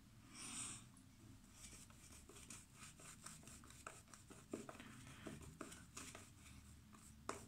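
Synthetic shaving brush working shaving-soap lather onto the face and neck: faint, quick brushing and rubbing strokes, with a brief hiss about half a second in.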